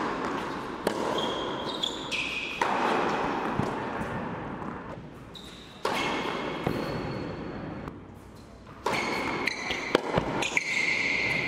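Tennis rally on an indoor hard court: sharp racquet strikes and ball bounces, with sneaker squeaks from players moving. The hits ring on in the large hall.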